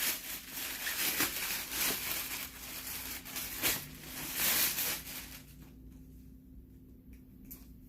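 Packaging being handled, rustling and crinkling with a few sharp clicks. It dies down about five seconds in, leaving a faint click or two.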